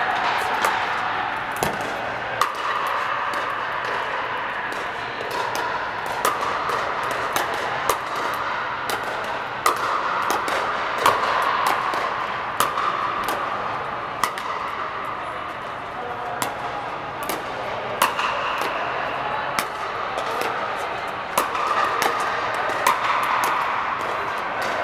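Pickleball paddles hitting the hard plastic ball, a string of sharp pops at an uneven rhythm from the near rally and the neighbouring courts, a few of them much louder than the rest. Under them runs a steady din inside a large air-supported dome.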